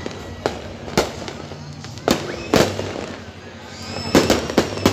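Aerial fireworks shells bursting overhead: a string of sharp bangs at irregular intervals, several coming close together near the end.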